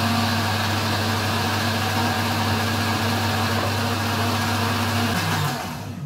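Cecotec jug blender running at full power, blending frozen berries, apple, oats and water into a smoothie. About five seconds in it is switched off and the motor winds down with a falling pitch.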